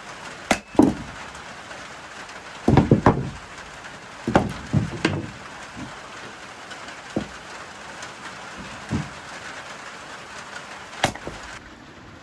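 Steady rain hiss, broken by several dull knocks and thuds, the loudest in short clusters near the start and about three and four and a half seconds in.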